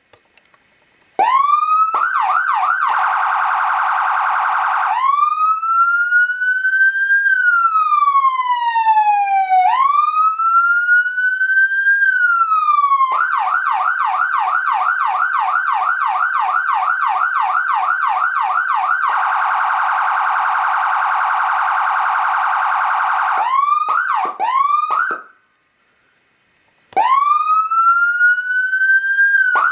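Whelen 295HFSA5 200-watt electronic siren cycling through its tones. It starts after a moment of silence with rising sweeps and a rapid warble, then gives a slow wail rising and falling, then a fast repeating yelp and an even faster phaser-like warble. A few quick rising blips and a short silence follow, and near the end a rise breaks back into the fast yelp.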